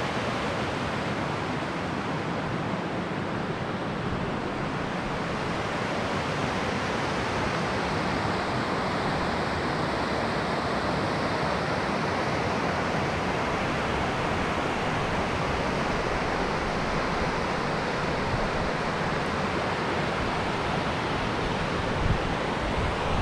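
Steady rush of a large spring-fed stream running as whitewater over rocks, an even roar without pauses.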